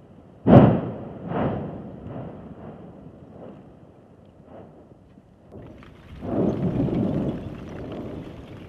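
Strombolian explosions at Etna's Southeast Crater: one sharp volcanic blast about half a second in with a rumbling tail, a weaker second blast a second later and a few fainter pops, then a longer rumbling swell of sound about six seconds in.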